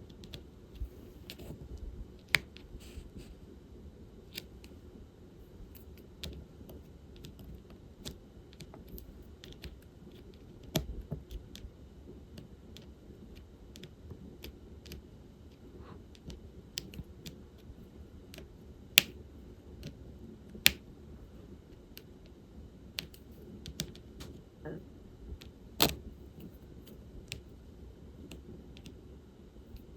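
Small irregular plastic clicks and taps of diamond-painting work with resin drills and their tools, a few of them sharper and louder, over a low steady room hum.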